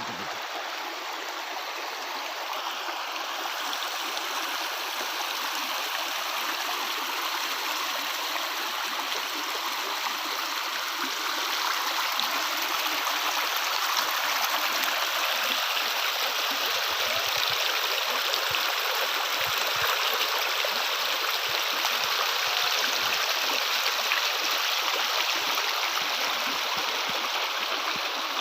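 Stream water rushing and splashing over rocks, a steady full rush that grows a little louder part-way through.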